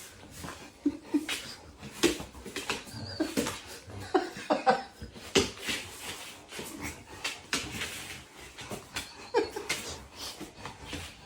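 A dog making short vocal sounds, with scattered sharp clicks and knocks.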